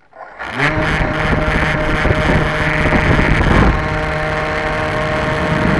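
Electric RC plane's motor and propeller starting from standstill about half a second in and spinning up quickly to a loud, steady whine and buzz. The sound comes from the onboard camera's microphone right beside the propeller, and it eases slightly a little after three and a half seconds.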